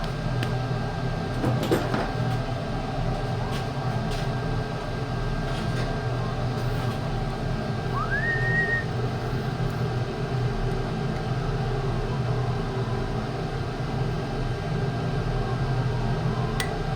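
Homemade lathe running with a steady motor hum. A short rising squeal comes about eight seconds in.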